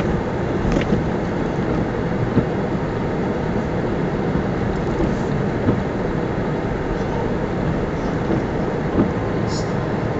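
Steady engine and road noise inside a van's cabin as it drives slowly over a snow-covered road, with a few brief clicks and knocks.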